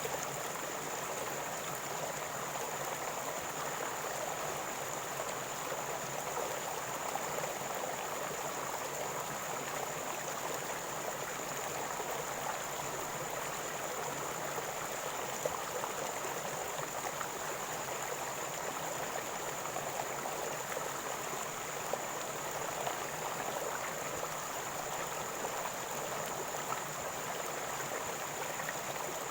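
River water flowing and gurgling over stones: a steady, unbroken rush with small splashes flickering through it.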